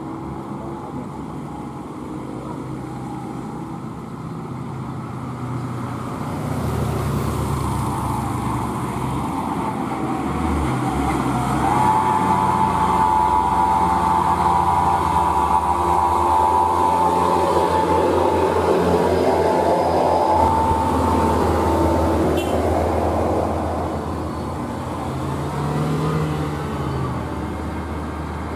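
Heavy UD Quester diesel truck loaded with steel rebar, its engine labouring under load as it crawls up a steep grade. It grows louder about six seconds in and is loudest through the middle, with a steady high whine over the engine for about ten seconds midway.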